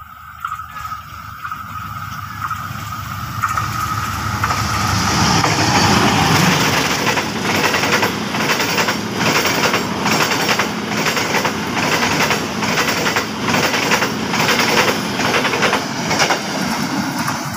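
Indonesian KAI passenger train approaching and passing at speed. A steady high tone during the first few seconds gives way to a building rumble. Then comes a fast, rhythmic clickety-clack of the coaches' wheels over the rail joints, which drops away near the end as the last coach passes.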